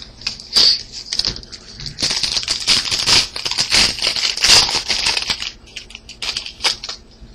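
Foil trading-card pack wrapper being handled and torn open: a few sharp crackles, then a dense run of crinkling lasting about three seconds, then a couple more crackles near the end.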